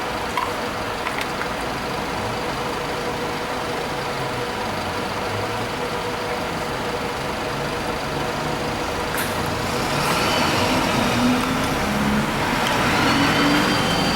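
Steady mechanical noise with a constant hum, rising somewhat in level about ten seconds in, with faint wavering tones on top near the end.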